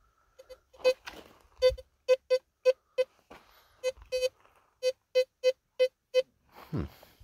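Teknetics T2 SE metal detector beeping as its coil sweeps over a buried metal target: a run of short beeps on the same mid-pitched tone, about three a second. Feet shuffle and brush rustles at times.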